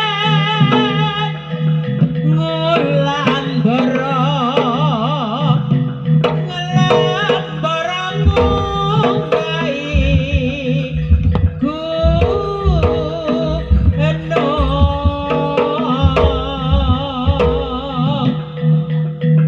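Jaranan music: a wavering, ornamented melody over a steady drone, with rapid hand-drum strokes coming in about eight seconds in and continuing.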